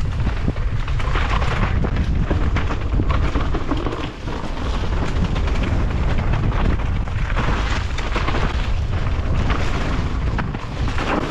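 Wind rumbling hard on the microphone of a mountain bike descending fast on a dirt trail, mixed with steady tyre noise and irregular clatter over rough ground.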